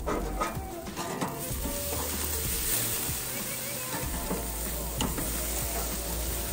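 Steaks sizzling on the grates of a gas grill, a steady hiss that thickens about a second in. A few sharp clicks from metal tongs on the grate as a steak is turned.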